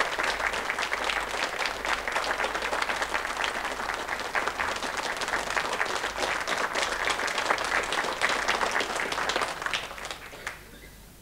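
Audience applauding, a dense steady patter of many hands clapping, which dies away about ten seconds in.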